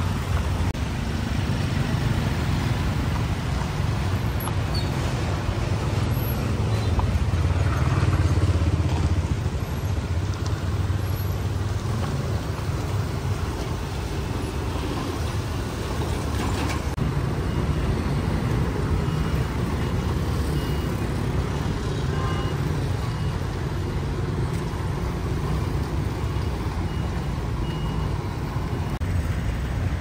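Road traffic: a steady low rumble of vehicles passing, swelling about eight seconds in.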